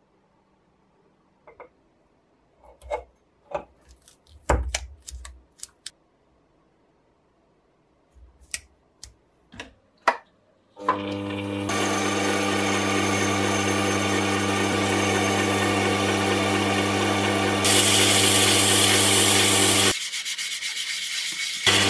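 A few scattered clicks and knocks as the perforated steel soldering-iron barrel is handled and fitted in a lathe chuck, then about eleven seconds in the lathe starts and runs with a steady hum. Abrasive paper rasps against the spinning steel tube, louder for a couple of seconds late on, dropping away briefly, then resuming near the end.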